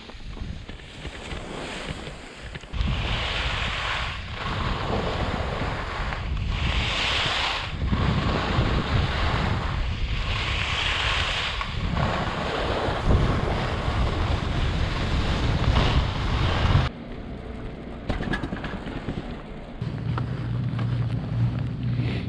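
Skis carving down groomed snow with wind rushing over the microphone, the edges' hissing scrape swelling on each turn about every four seconds. It cuts off suddenly about three-quarters of the way through, giving way to quieter wind and a low steady hum on the chairlift.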